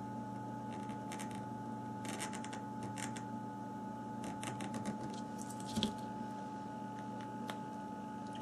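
Small clicks and light taps from handling a smartphone's parts and small tools during repair, in short scattered clusters with one slightly louder knock near the middle, over a steady electrical hum.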